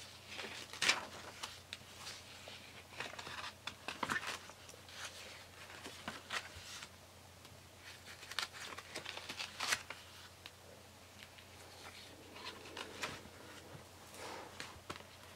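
Pages of a spiral-bound paper journal being turned by hand: irregular crisp rustles and flaps of paper, the sharpest about a second in.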